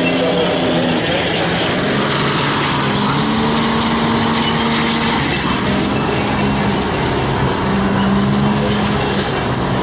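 Steady, loud machinery noise of engines running, with several droning tones that hold and shift in pitch.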